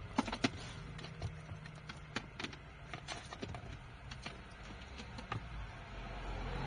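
Light irregular clicks and taps from a dash-cam power cable being handled and coiled, with its plug and small parts knocking lightly, over a faint steady low hum.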